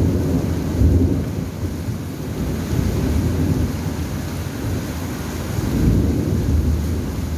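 Rolling thunder rumbling through steady rain, swelling about a second in and again near six seconds.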